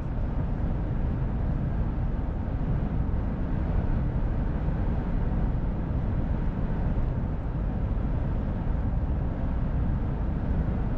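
Steady cab noise of a Mercedes-Benz Actros L 1848 truck cruising at about 80 km/h. The straight-six diesel drones evenly under tyre and road noise.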